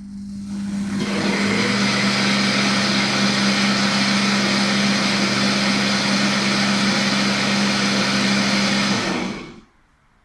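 McLipha heating blender's motor blending a jug of orange soup. It spins up over about a second, runs steadily with a low hum under a loud whir, then winds down and stops about nine and a half seconds in.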